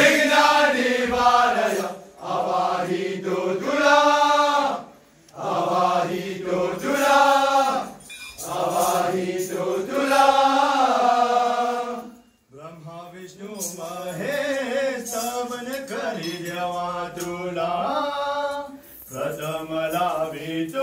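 Men's voices chanting and singing a Marathi devotional Jakhadi song to Ganapati, in sung phrases about two seconds long with short breaks and a brief pause about twelve seconds in.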